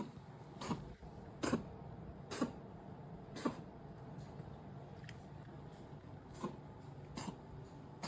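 A cat coughing: a run of short coughs about one a second, a pause of a couple of seconds, then two more near the end.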